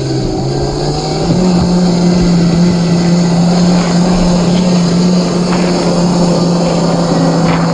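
Electric drive of a 1/10-scale RC crawler, its 540-size 27-turn brushed motor and gearing, giving a steady whine as the car drives. The pitch steps up a little about a second in and then holds.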